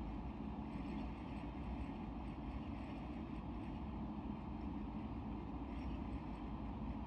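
Aquarium air pump humming steadily, with air bubbling up through the water in the tank's bubble column.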